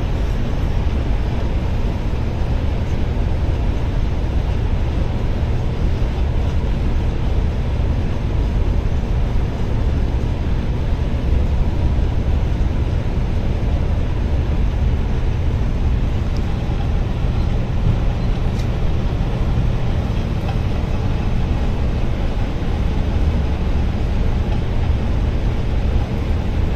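Moving passenger coach, its engine and road noise a loud, steady low rumble that holds evenly throughout.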